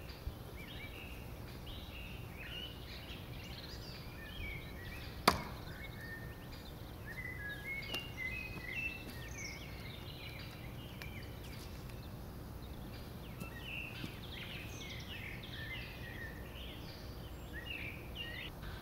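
A thrown steel knife strikes the wooden tree target with one sharp thunk about five seconds in, with a few fainter knocks a few seconds later. Birds chirp throughout.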